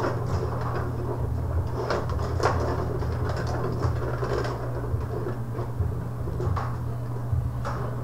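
Rod hockey game in play: the metal rods sliding and twisting in their slots and the plastic players knocking against the puck and boards, in scattered irregular clacks and rattles over a steady low hum.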